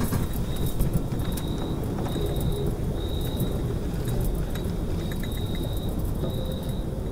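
A steady low rumbling ambience with a thin, high-pitched tone pulsing about once a second.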